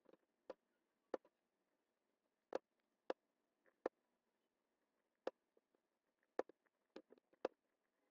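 Computer mouse button clicking: about a dozen sharp single clicks at uneven intervals, some in quick pairs, over near silence.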